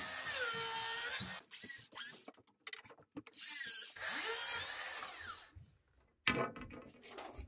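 Cordless circular saw ripping a narrow hinoki strip lengthwise. The motor whine wavers in pitch as the blade loads up, and it runs in several spurts with short stops between them. The longest runs are at the start and in the middle, and a last short run comes near the end.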